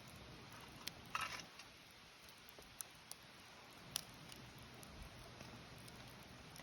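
Wood campfire crackling: a few sharp pops and snaps, a small cluster about a second in and a single loud pop about four seconds in, over a faint steady hiss.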